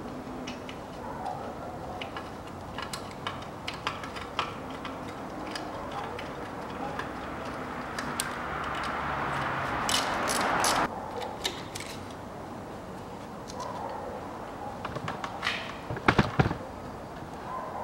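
Light clicks and rattles of the ABS wheel-speed sensor cable and its mounting brackets being handled and fastened along the front strut. A scraping hiss builds over a couple of seconds in the middle and stops abruptly, and a few sharper knocks come near the end.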